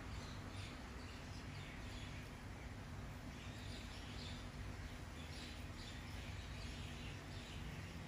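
Faint bird chirps, short and irregular, over a low steady background hum.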